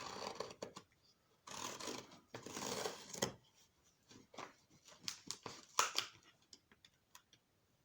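Utility knife slitting the packing tape on a cardboard box: three rasping strokes in the first three seconds or so, then scattered clicks and rustles of cardboard being handled.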